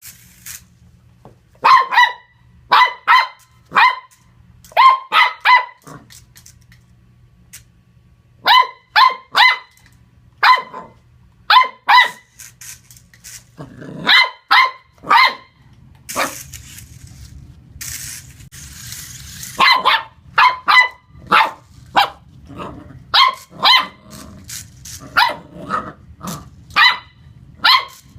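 Welsh Corgi puppy barking repeatedly at a remote-control toy car, in short high-pitched yaps that come in quick runs of two to four with brief pauses. A hissing noise runs for a few seconds past the middle.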